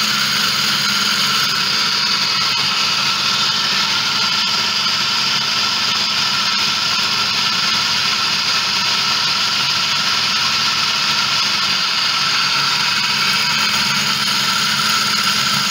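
Electric food processor running steadily at full speed, its blade blending a wet paste of minced chicken, eggs, oil and spices; a constant motor hum and whine.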